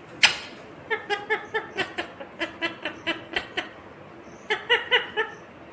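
Indian ringneck parakeet chattering: a quick run of short, high, repeated syllables, then a shorter run near the end, with a sharp click just after the start.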